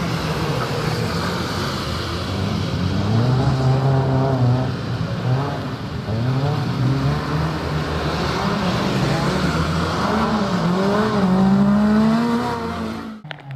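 Renault Clio's four-cylinder engine revving hard and dropping back again and again as the car is driven around tight cone turns at competition pace, pitch climbing and falling with each burst of throttle and gear change. The sound cuts off suddenly near the end.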